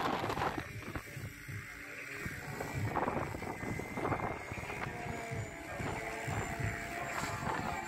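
Radio-controlled model helicopter spooling up and lifting off the grass: the motor and rotor give a steady whine over a pulsing low rumble.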